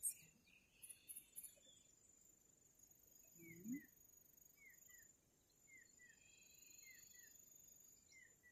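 Faint outdoor insect chorus: a steady high-pitched cricket trill, joined from about three seconds in by pairs of short falling chirps repeating about once a second. A sharp click at the start and a brief low sound about three and a half seconds in.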